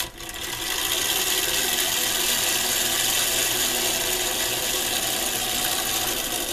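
1930s Marx Dare Devil Flyer wind-up tin toy airplane released: a click, then its clockwork spring motor and propeller run with a steady mechanical whir that eases slightly near the end.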